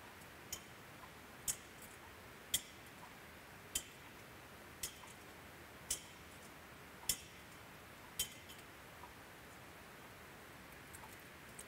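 Metal thurible clinking against its chains as it is swung to incense the Gospel book before the reading: eight sharp metallic clinks about a second apart.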